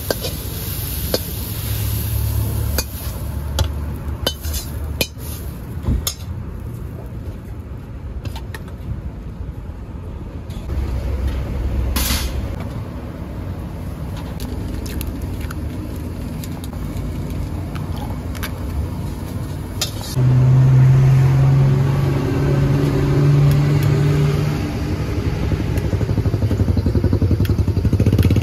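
Street-food stall background: a motor engine runs nearby, loudest as a steady low hum for a few seconds about two-thirds of the way through, over scattered clinks and scrapes of metal cookware.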